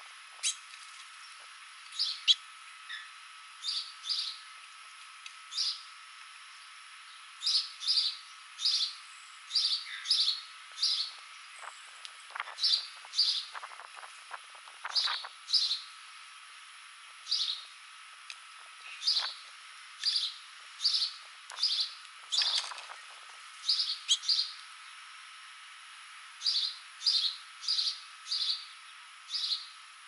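House finches giving short, high chirp calls again and again, often in quick pairs, roughly once a second. A few brief scuffling noises come around the middle.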